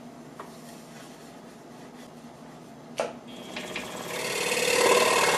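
A faint hum, a sharp click about three seconds in, then a scroll saw running and growing louder near the end, its blade rasping through 1.5-inch pine to smooth the edge of a cutout window.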